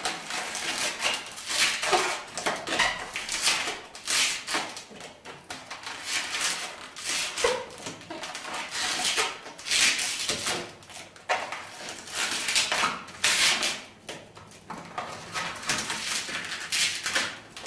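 Latex 260 modelling balloons squeaking and rubbing against each other and against the fingers as pinch twists are made in the bubbles, in irregular squeaks and rubs with a few short high squeals.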